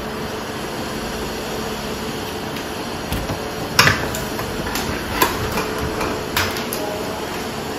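A handful of sharp metallic knocks and clinks from hand tools at a drywall wall, the loudest about four seconds in, over a steady hum.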